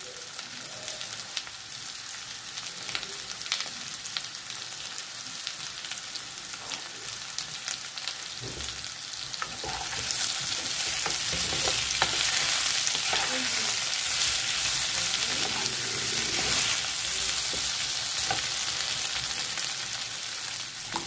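Diced potatoes sizzling in hot oil in a kadai, stirred with a wooden spatula. The sizzle grows louder about halfway through, as the potatoes are tossed around the pan.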